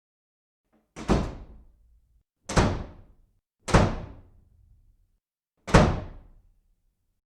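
Four heavy thuds at uneven intervals, each dying away within about a second.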